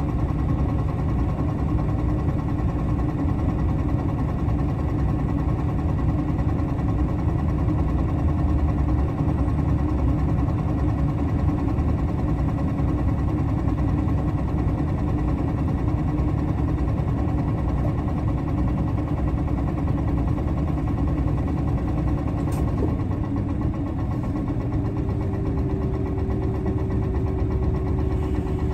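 Nissan Diesel Space Runner RA city bus (PKG-RA274KAN) with its diesel engine running steadily, a low even hum throughout. Near the end a higher steady tone joins in for a few seconds.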